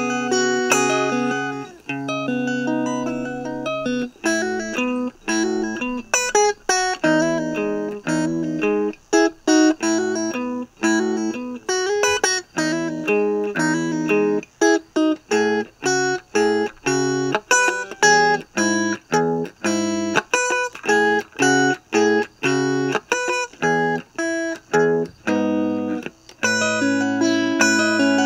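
Electric guitar playing an instrumental piece. Chords ring out at the start and again near the end, and in between comes a long run of short picked chords, each cut off sharply, about one to two a second.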